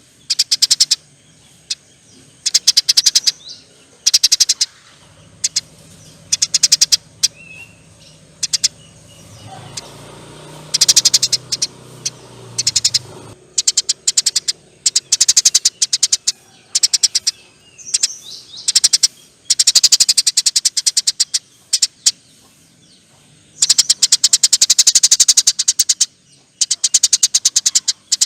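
Eurasian tree sparrow chattering in repeated long, rapid rattling bursts (the 'nyerecet' call), with a faint low hum behind it for several seconds near the middle.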